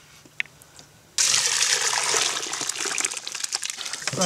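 Hot, freshly distilled milk vodka being poured into an enamel pot: a steady splashing pour that starts abruptly about a second in.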